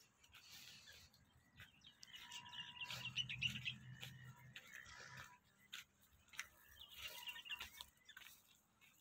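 Faint bird chirping in two short, rapid trills, one about two seconds in and another about seven seconds in. Scattered soft clicks and crunches run underneath.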